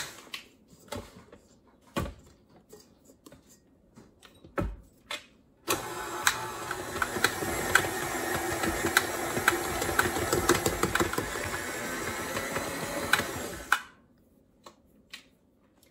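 A KitchenAid stand mixer kneading bread dough with its dough hook. After a few faint knocks, the motor starts about six seconds in and runs steadily with a regular tick about once a second, then stops shortly before the end.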